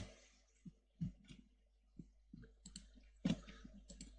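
Scattered clicks of a computer mouse, about seven over four seconds, the loudest about three seconds in.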